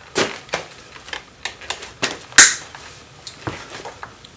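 Clicks and knocks of a wood clamp being released and taken off a motorcycle's squeezed clutch lever, with one sharp clack a little past halfway louder than the rest.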